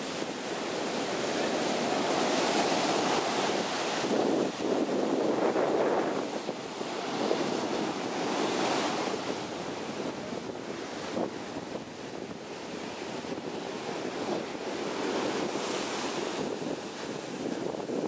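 Heavy ocean surf breaking and washing up the sand in foamy rushes, swelling and ebbing in long surges.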